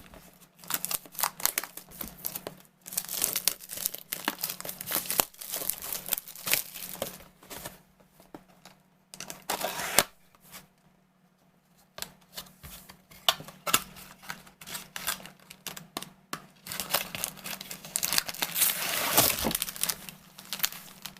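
A trading-card booster box being opened by hand: its wrapping crinkling and tearing in irregular bursts of rustles and clicks, with a quiet spell of about two seconds near the middle. A faint steady hum runs underneath.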